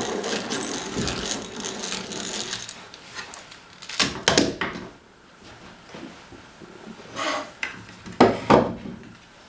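Hand-cranked egg-beater drill with a 1/8-inch bit whirring and clicking through its gears as it bores a pilot hole in wood; it stops after about three seconds. A few sharp knocks follow as tools are set down on the wooden workbench.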